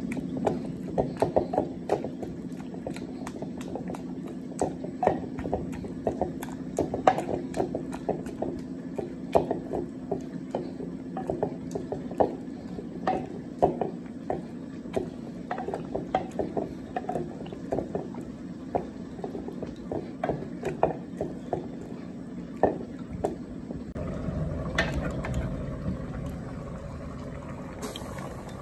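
Wooden pestle pounding cooked vegetables and beef in a wooden mortar: irregular wet knocks and thuds, a couple a second, over a steady low hum. Near the end the pounding stops and a ladle scoops and splashes broth in a metal pot.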